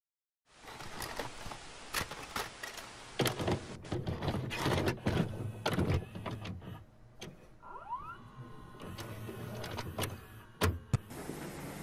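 VHS video recorder's tape mechanism loading and starting playback: a run of mechanical clunks and clicks over motor whirring, a short rising whine near the middle, and two sharp clicks near the end.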